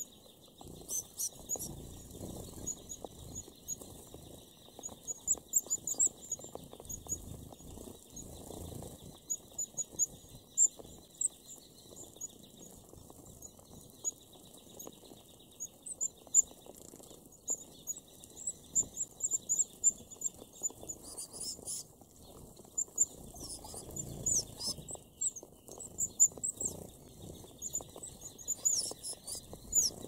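A flock of red-browed finches feeding: many short, high-pitched contact calls throughout, with frequent brief wing flutters and pecking and rustling in seed husks. A steady high buzz runs underneath.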